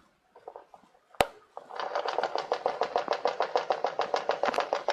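A single sharp click about a second in, then the rapid, even clicking of a walking Littlest Pet Shop toy's mechanism as it steps across a wooden floor, about nine clicks a second.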